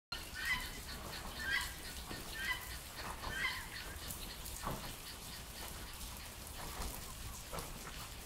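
A bird calling four times, about once a second, then more faintly, over a steady hiss of rain.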